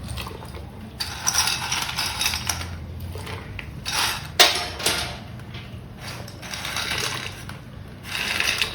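Dry penne pasta being tipped into a pot of boiling water, a rattling clatter in several bursts with a sharp click midway.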